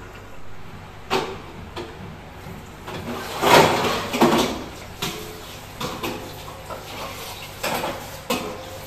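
Stainless-steel dishes and a large steel tray clanking and scraping as they are handled and set on a rack at a kitchen sink. The knocks are irregular, with the loudest clatter about three and a half seconds in.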